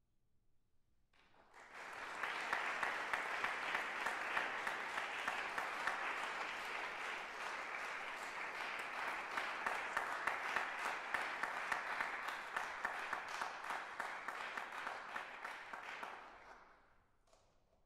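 Audience applauding: dense clapping that begins about a second in, holds steady, and fades out about a second before the end.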